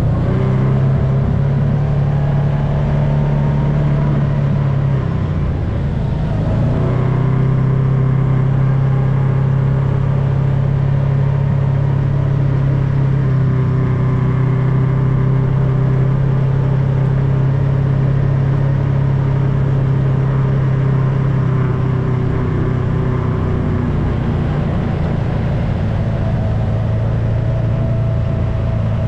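UTV engine running under way on a dirt track, heard from on board as a steady low drone. The engine note changes about five to seven seconds in, then holds steady, easing slightly near the end.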